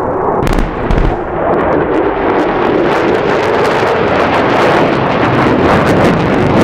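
Two low booms from a pyrotechnic wall-of-fire explosion about half a second and a second in. They give way to the growing jet noise of a B-1B Lancer's four turbofan engines passing low, crackling more and more as it nears.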